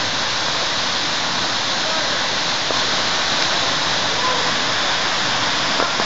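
Waterfall pouring down a rock face into a pool: a steady, dense rush of falling water.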